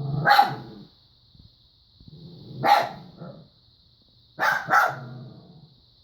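Dog barking: one bark at the start, another a couple of seconds later, then two quick barks in a row near the end.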